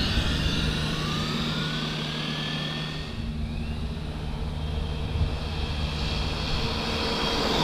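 Electric motor of a Losi LMT RC monster truck whining at full throttle on a 2S LiPo as the truck speeds away, the whine rising in pitch over the first few seconds.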